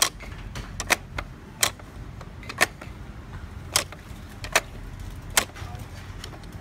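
Sharp clicks and taps of hard plastic being handled, a few to a second at an uneven pace, as fingers poke and move a plastic toy figure on its block base, over a steady low hum.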